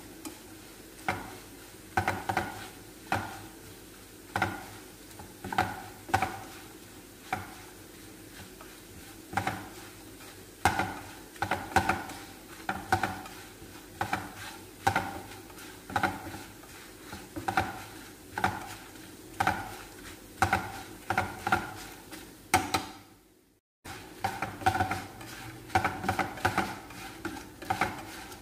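A utensil scraping and tapping against a frying pan, about once a second in uneven runs, as pieces of khubz flatbread are stirred in sizzling oil until brown and crisp. The pan rings briefly with each stroke, and the sound drops out for a moment near the end.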